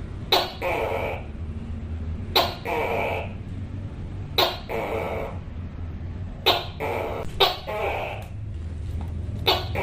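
Tokay gecko calling its repeated two-part 'to-kay' call, each a sharp clicking onset followed by a drawn-out hoarse syllable, about five times, roughly every two seconds.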